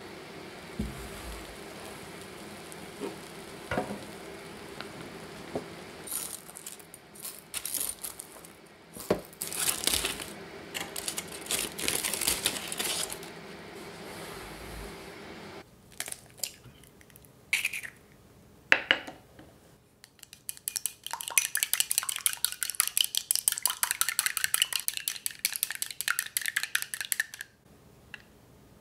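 Aluminium foil crinkling and ceramic pie weights clattering as they are lifted out of a baked pastry shell, over a low steady hum that stops about halfway through. A few sharp knocks and clinks follow. Near the end comes a fast, even run of clicks: an egg being beaten briskly with chopsticks in a ceramic bowl.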